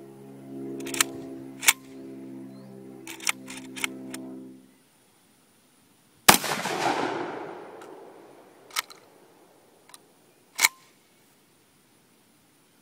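A single 12-gauge shot from a Saiga 12 semi-auto shotgun about six seconds in, with a long echoing tail, followed by a few sharp metallic clacks of the action being worked. The gun is on V-plug gas setting 3 with high-brass field loads, where it failed to cycle. Before the shot, music with steady notes and a few clicks plays and cuts off abruptly.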